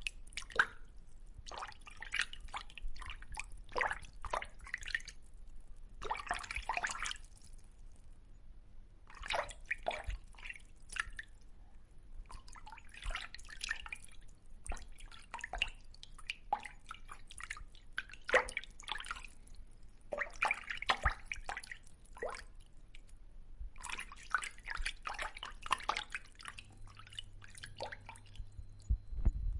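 Wet clicking and dripping sounds from a fish sound effect, coming in irregular clusters of quick clicks a second or two long with short pauses between.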